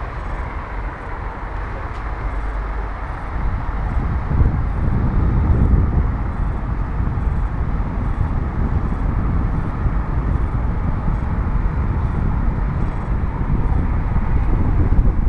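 Wind buffeting the microphone: a steady low rumble with a rush over it, swelling a little about four to six seconds in.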